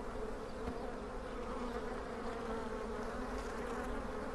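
Honeybees humming steadily over an opened hive: the continuous, even buzz of a colony during a frame inspection.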